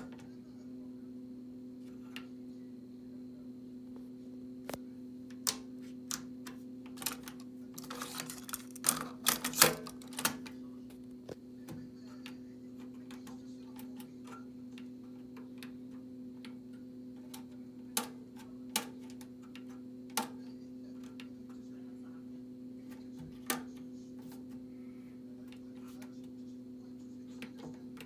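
Toshiba PC-G6R stereo cassette deck's transport mechanism clicking and clunking as its control buttons are pressed, with a dense run of clatter about eight to ten seconds in and single clicks scattered before and after. A steady low hum runs underneath.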